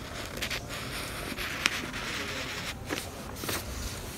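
Sharpie fine-point felt-tip marker drawing on lined paper: short scratchy strokes of the tip across the page, with a few sharp ticks.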